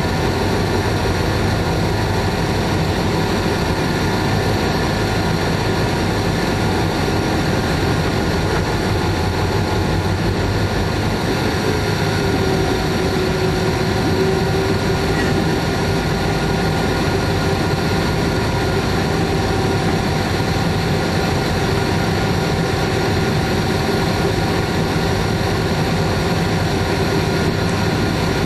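Diesel locomotive engine running steadily, heard from inside the cab as the train moves slowly along the track. About twelve seconds in, an extra note rises into the engine sound and holds.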